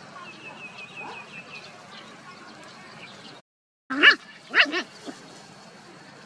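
Young puppies, about seven weeks old, giving three sharp yips while play-fighting, about four seconds in, just after the sound cuts out briefly. Before that there is only faint outdoor background with a quick run of high chirps.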